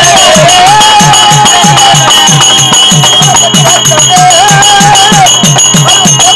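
Therukoothu folk-theatre music: a barrel drum beaten in a quick, even rhythm, each stroke sliding down in pitch, under a wavering high melody line and jingling metal percussion.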